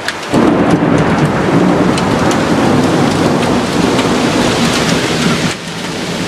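Heavy hailstorm: large hailstones and heavy rain pelting down, a dense hiss thick with sharp impacts. It comes on suddenly a moment in and eases slightly near the end.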